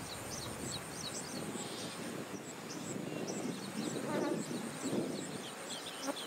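Outdoor pond ambience: a very high chirp repeating evenly about three times a second, with scattered short high calls, and a few low rushing swells around the middle.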